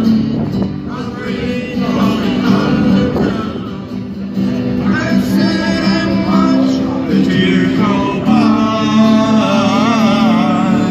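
A live acoustic guitar band plays a song with singing, heard through the stage's PA speakers.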